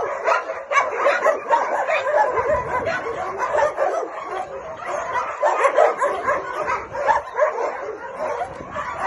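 A chorus of many shelter dogs barking at once, the calls overlapping without a break.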